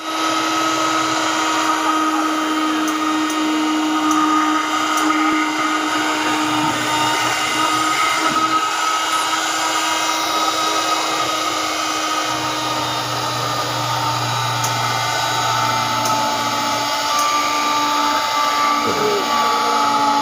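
Electric straight-knife cloth cutting machine running steadily with a constant motor whine as its upright blade cuts through a stack of layered fabric.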